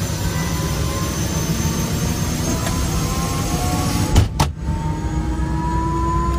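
Heard from inside the cabin, an Airbus EC130 helicopter's turbine engine is starting up as the main rotor begins to turn, with a whine that rises slowly in pitch. There is a sharp knock about four seconds in.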